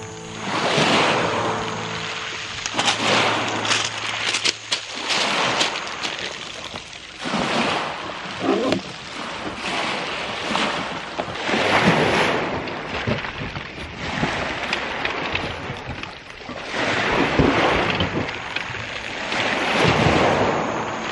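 Small waves breaking and washing back over a pebble beach, the hiss of the surf swelling and falling every couple of seconds.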